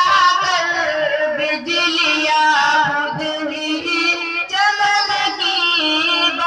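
A tarana, a song, sung over musical accompaniment: a melodic voice line over a steady held low note.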